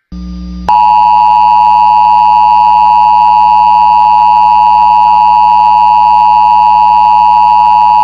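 Emergency Alert System attention signal: the dual-tone alert, two steady tones (853 and 960 Hz) sounding together, starting a little under a second in and holding steady, with a low hum underneath. It marks the start of an emergency alert, here a tornado warning.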